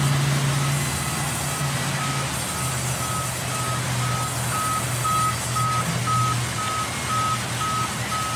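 Sawmill band saw running as a plank is ripped lengthwise through it, a steady loud machine noise with a low hum. A short high electronic beep repeats about twice a second throughout.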